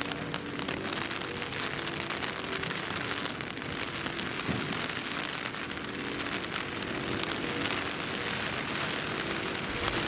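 Steady heavy rain falling, a dense hiss with many individual drops ticking close by.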